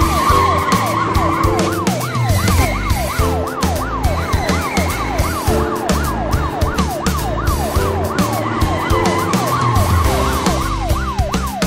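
Cartoon police car siren: a fast falling wail repeated about three times a second, over background music with a steady beat.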